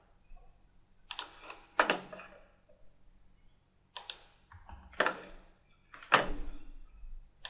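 Several sharp computer mouse clicks, spaced about a second apart, each with a short ring.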